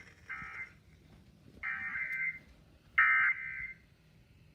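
Emergency Alert System SAME data bursts: three short, buzzy digital tone bursts about a second apart, the first the shortest, separated by near silence.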